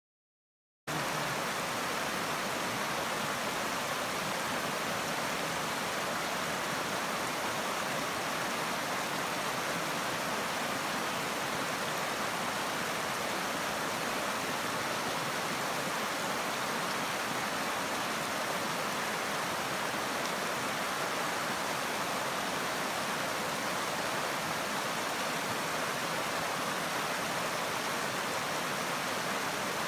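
Shallow river running over rocks in a riffle: a steady rush of water that starts abruptly about a second in.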